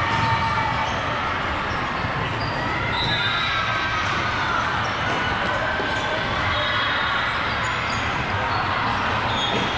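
Steady din of many indistinct voices with frequent dull thuds.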